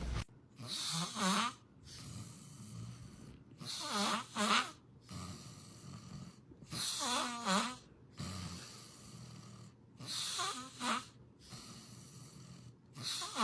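Snoring: five loud snores about three seconds apart, each in two quick parts with a wavering, whistly pitch.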